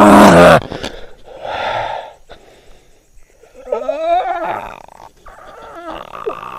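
A man grunting and groaning hoarsely: a loud, rough grunt at the start, then breathy wheezing, and a wavering, drawn-out moan about four seconds in, with shorter wavering groans near the end.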